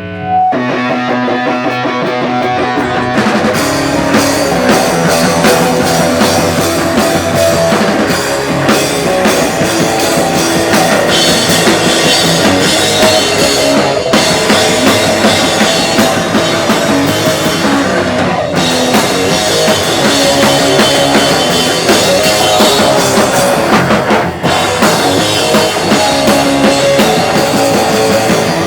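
Rock band playing loud and live: guitar comes in abruptly, and the full drum kit with cymbals joins about three seconds in.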